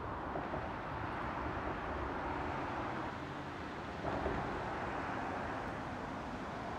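Steady outdoor hiss of distant road traffic, with a brief knock about four seconds in.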